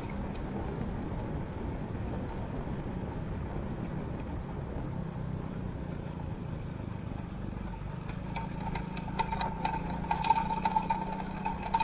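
Motorcycle riding on a wet road: a steady low engine hum under the hiss of tyres on wet tarmac. About eight seconds in, a higher whir with rapid clicking joins as the tyres roll onto brick paving.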